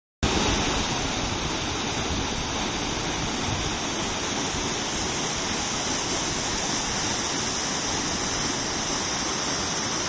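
Natural waterfall: water falling in a steady, unbroken rush.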